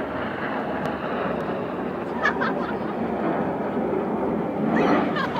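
Steady jet noise from the Red Arrows' BAE Hawk T1 jets flying over the display area.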